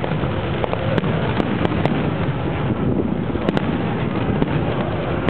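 Fireworks display at full intensity: a continuous crackling rumble of many bursting shells, with sharp bangs every half second or so.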